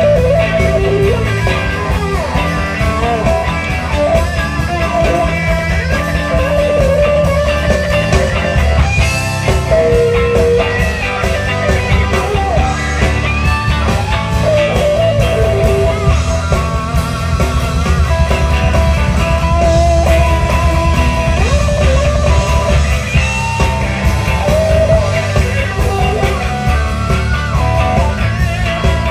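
Blues band playing live: a lead electric guitar solo with bent, wavering notes over bass guitar and drums.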